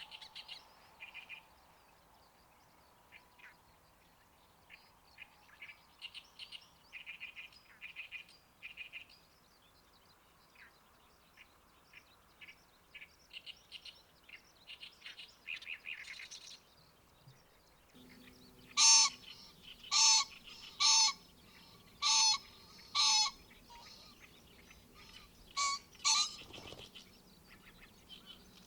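Wild birds calling: soft, quick high chirps through the first two-thirds, then a run of about seven loud calls, each roughly a second apart.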